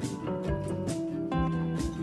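Background music: a light instrumental tune with a steady beat.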